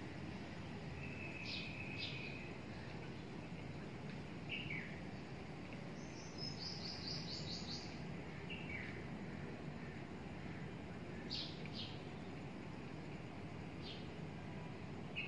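Birds chirping: scattered short high calls, several falling in pitch, and a quick run of repeated notes about six to seven seconds in, over a steady low background noise.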